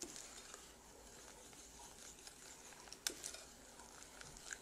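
Wooden spoon stirring a thick paste of baking soda and liquid castile soap in a glass bowl, faint scraping and squishing, with a light tap about three seconds in.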